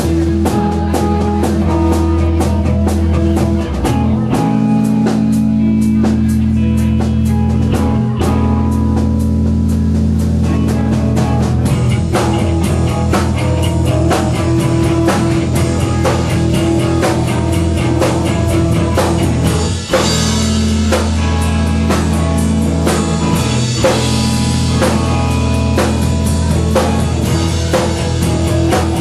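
A live rock band playing a song: a drum kit with steady beats and guitar over sustained low bass notes.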